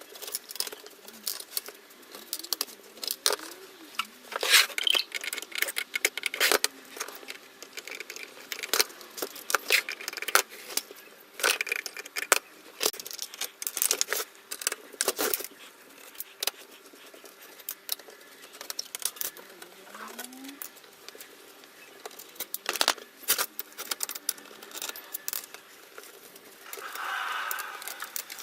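Irregular clicks, knocks and scrapes of tools and hands working on the metal and plastic parts of a DVD player being taken apart, with a denser scraping sound near the end.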